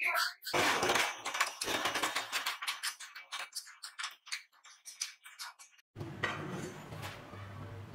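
Rapid, irregular metallic clicking and clattering of wire-making machinery for about six seconds, which stops abruptly; then a steady machine hum with a low drone.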